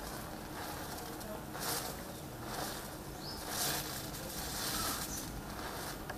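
A chain of wooden matches catching one after another, the match heads flaring with soft hisses, three of them standing out over steady background noise.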